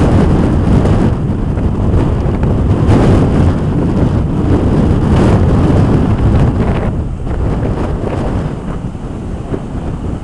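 Strong hurricane wind buffeting the microphone over heavy surf breaking on the beach, loud and rumbling, easing a little after about seven seconds.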